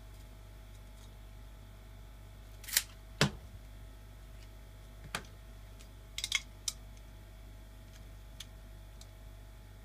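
Copper pipe and small hand tools being picked up and set down on a rubber mat: a few sharp clicks and knocks, the loudest pair about three seconds in and a quick cluster of clicks just after six seconds. A steady low hum runs underneath.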